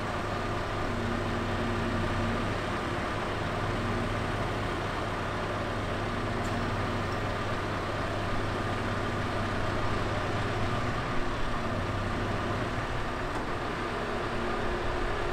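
Scania R650's V8 diesel engine running steadily, driving the hydraulics of a Copma 1150 knuckleboom loader crane as it swings a suspended load.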